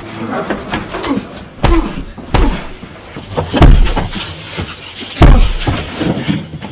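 A heavy wooden door slammed and banged, four loud thuds over a few seconds, the last two loudest, with a voice between the bangs.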